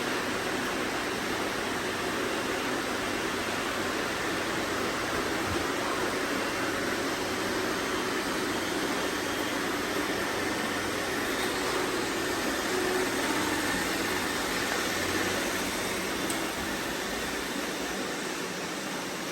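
Robot vacuum cleaners running: a steady, even hum of suction motors and brushes.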